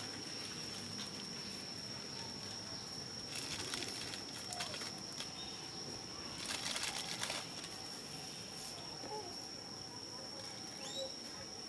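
Dry leaf litter rustling and crackling in two short bursts, about three seconds in and again near seven seconds, as a baby macaque rummages through it. A steady high-pitched tone and a few faint chirps run underneath.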